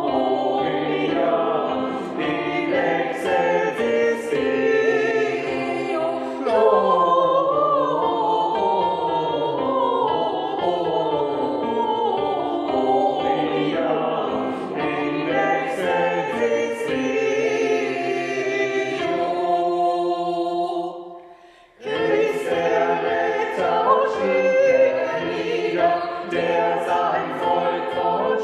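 Choir singing with held, overlapping chords. A brief break comes about three-quarters of the way through, then the singing starts again.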